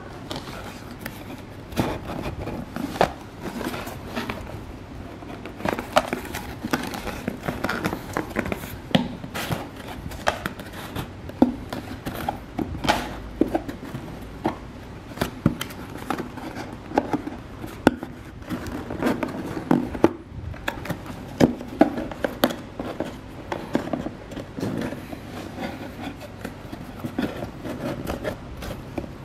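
Cardboard and plastic packaging of a headphone box being handled: irregular scrapes, taps and rustles as items are lifted and shifted inside the box.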